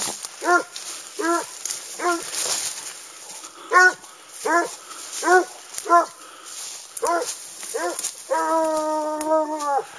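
Hunting dog giving tongue on a wild boar's trail: a string of short, yelping barks about one a second, then one long drawn-out howl near the end. Dry leaves and brush rustle between the barks.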